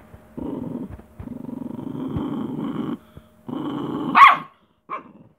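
Small peke-a-pin dog growling in three long rumbling stretches as a hand touches her, then giving one short sharp bark a little over four seconds in. It is a defensive warning: she does not want to be freed from the quilt.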